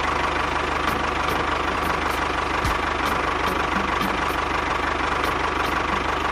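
Tractor engine idling steadily with an even knocking beat.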